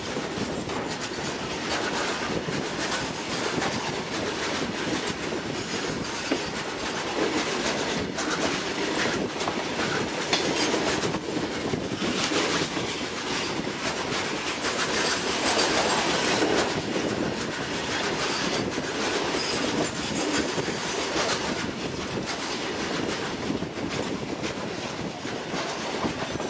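Open-top steel freight wagons of a goods train rolling past close by, their wheels knocking over the rail joints in a continuous clatter on top of a steady rolling rumble.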